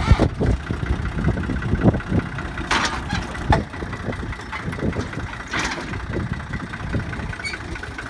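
Tractor engine running steadily while pulling an old corn planter, with a few sharp knocks from the working machinery.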